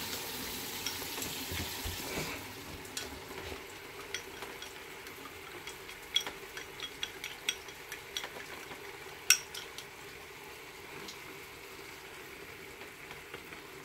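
Chopsticks beating eggs in a small bowl, tapping and clicking against its sides, over the steady sizzle of sliced onions frying in a pan; one sharper clink comes about nine seconds in.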